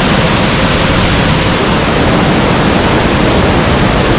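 Loud, steady rush of water from an underground waterfall.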